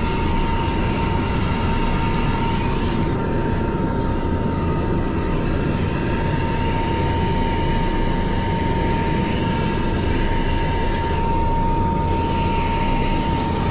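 Helicopter in flight, heard from on board: a loud, steady rush of rotor and engine noise with a constant high whine running through it.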